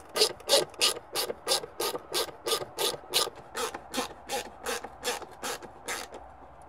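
Hand screwdriver driving a mounting screw into a thin wooden cabinet panel, clicking evenly about three times a second and stopping about six seconds in.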